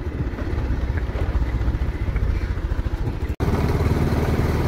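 Motorcycle engine running steadily while riding along a rural road. The sound cuts out for an instant about three and a half seconds in, then carries on a little louder.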